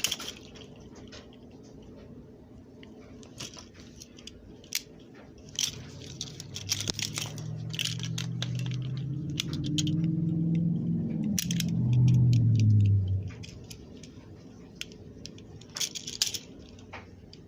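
Steel chain handcuffs being handled, with scattered metal clicks and clinks. A low hum swells from about a third of the way in, is loudest just past the middle, and drops in pitch before it stops.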